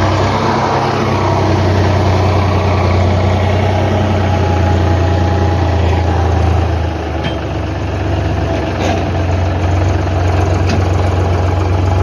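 Tractor diesel engine idling steadily with a deep, even hum.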